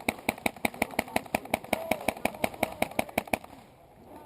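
Airsoft gun firing a long full-auto burst, a rapid even rattle of about seven shots a second that stops about three and a half seconds in.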